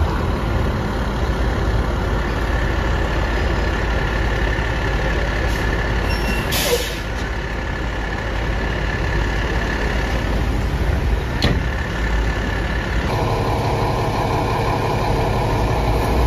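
Fire engine's diesel engine running, with a short air-brake hiss about seven seconds in. In the last few seconds a fire engine idles close by.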